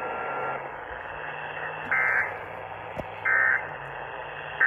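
AM radio hiss, then the Emergency Alert System end-of-message data bursts: two short, harsh, buzzy digital tone bursts about 1.3 s apart, with a third starting right at the end. They mark the close of the severe thunderstorm warning relay.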